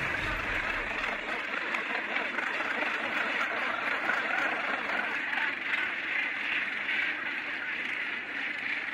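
Northern gannet colony: thousands of birds calling at once in a dense, steady din.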